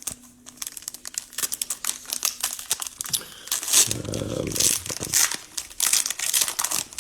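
Cellophane wrapper of a baseball card cello pack crinkling as it is torn open and pulled off the cards, with a louder stretch of rustling about halfway through.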